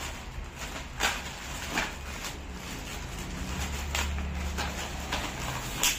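Clear plastic bag crinkling and rustling as the boat's paddle sections are pulled out of it, with several sharp crackles at irregular moments.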